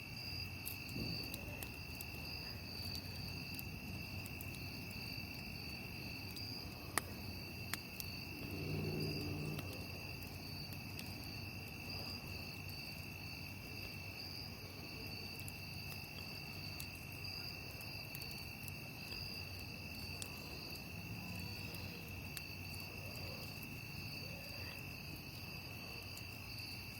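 Crickets chirping in a steady, continuous high chorus, with a couple of sharp clicks about seven and eight seconds in.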